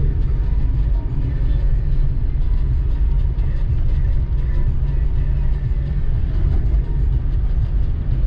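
Steady low rumble of a car driving along a paved road: engine and road noise picked up by a dash cam inside the car.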